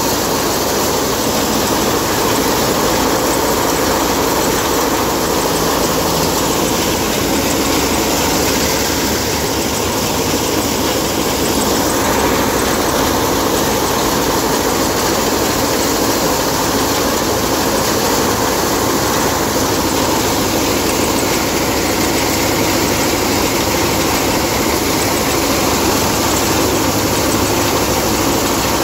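Wheat threshing machine running steadily and loudly while threshed grain pours from its outlet chute into a steel basin.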